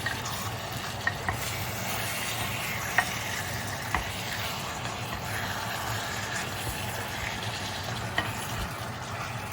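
Chicken thigh pieces sizzling steadily as they sear in hot oil with garlic and ginger, with a few sharp clicks scattered through.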